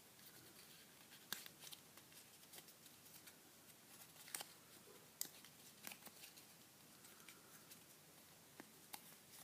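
Faint, scattered crinkles and light clicks of a paper sheet being handled and creased by hand as an origami flap is worked into a pocket.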